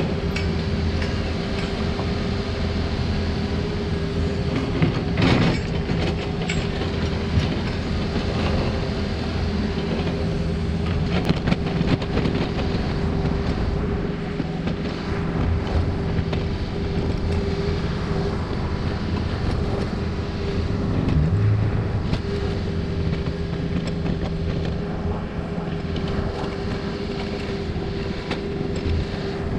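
Takeuchi mini excavator's diesel engine running steadily under load with a steady whine, as it digs and roughs in a dirt bank; a few sharp clanks of the bucket, the loudest about five seconds in and two more around eleven seconds.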